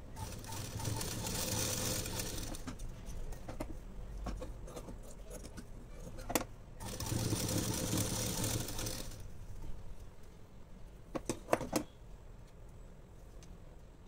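Domestic sewing machine stitching through fabric in two runs of about two and a half seconds each, with a pause between. A few sharp clicks come near the end.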